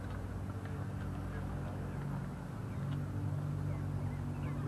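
Car engine idling with a steady low hum, growing a little louder about three seconds in.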